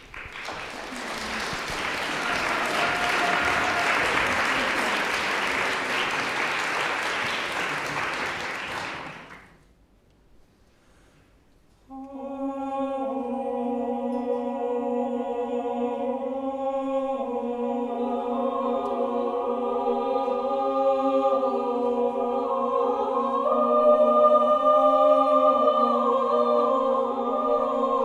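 Audience applause that dies away after about nine seconds; after a brief hush, a mixed a cappella choir starts singing about twelve seconds in, with a steady held low note beneath moving upper voices.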